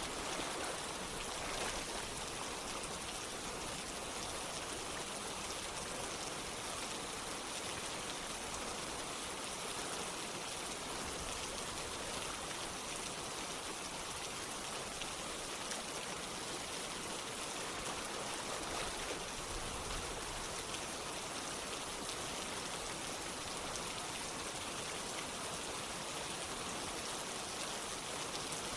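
Steady rain mixed with running water, an even hiss that holds unchanged throughout.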